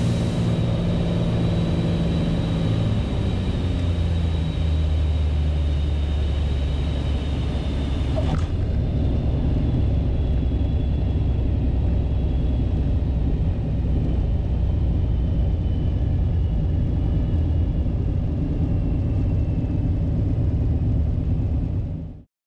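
Beechcraft A36 Bonanza's piston engine and propeller heard in the cabin as the power comes back to idle for landing, the engine pitch falling over the first few seconds. A steady low rumble follows through the landing roll. There is a click about eight seconds in, after which the sound is duller, and it cuts off suddenly near the end.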